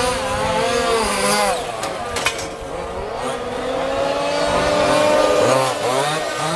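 Two-stroke petrol engines of 1:5 scale RC rally cars revving up and down as the cars drive the course, with a sharp knock about two seconds in.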